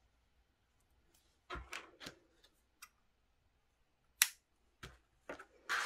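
Scissors snipping a wool yarn tail close to crocheted fabric. The sharpest snip comes about four seconds in, among a few lighter clicks and knocks from handling.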